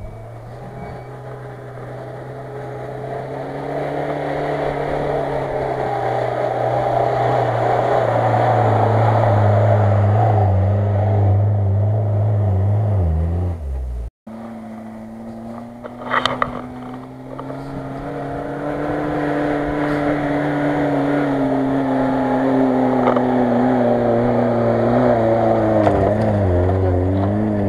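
Off-road 4x4 engine running hard under load at fairly steady revs, its pitch drifting slowly as it grows louder. It cuts off abruptly about halfway through and comes back, with a brief sharp clatter a couple of seconds later. Near the end the revs waver up and down as a Lada Niva works through mud.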